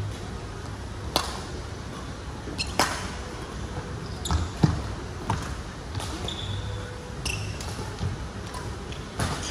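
Badminton rally: rackets hitting a shuttlecock with sharp snaps about every one to two seconds, a pause, then another hit near the end, with sneaker squeaks and footfalls on the court floor in a large, echoing sports hall.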